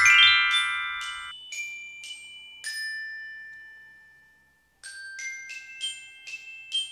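Short end-screen jingle of glockenspiel-like bell notes: a quick upward run, a few single ringing notes, a brief pause, then a steady string of notes at about two to three a second.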